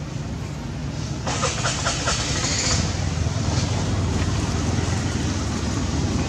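Steady low mechanical rumble, like a motor or vehicle running, growing a little louder partway through. About a second in there is a brief burst of crisp rustling, lasting a second and a half.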